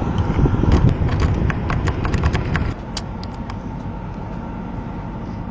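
Small metal clicks and ticks of a pick tool working a car door lock, irregular and scattered throughout, over a low rumble that drops away about two and a half seconds in.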